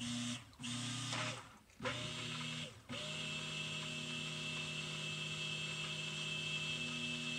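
Stick blender motor whirring in soap batter in a crock pot. It runs in a few short bursts, then steadily from about three seconds in, blending the oils and lye solution toward trace.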